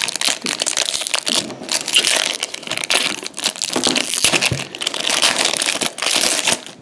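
Foil wrapper of a 2016-17 Upper Deck MVP hockey card pack crinkling and crackling as hands tear it open and crumple it.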